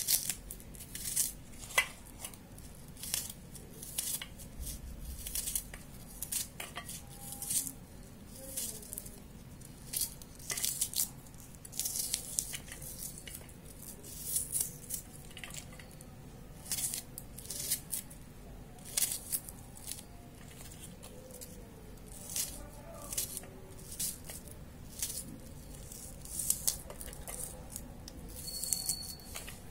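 Small knife scraping and cutting the papery skin off garlic cloves: short, dry scratching strokes, irregular, one or two a second.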